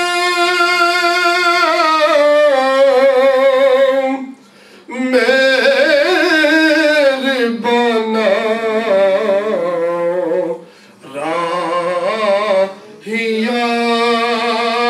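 A man's unaccompanied devotional chanting through a microphone, in long drawn-out wavering notes. The voice breaks off for short breaths about four and a half, eleven and thirteen seconds in.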